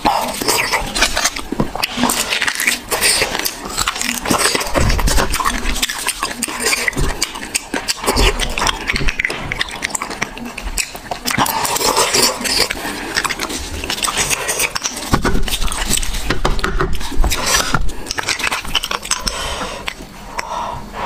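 Loud eating sounds of bone marrow: wet chewing, sucking and smacking in a dense run of clicks, with a small metal spoon scraping marrow from inside the bone.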